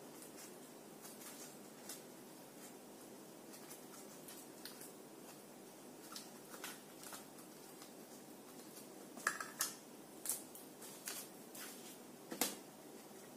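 Cardboard, paper and glitter foam sheet being handled and pressed together by hand: faint rustles and scattered crackles, with a few louder crinkles and clicks in the second half.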